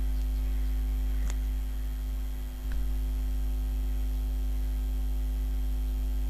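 Steady electrical mains hum with a buzz of evenly spaced overtones and a faint hiss, with a faint click about a second in.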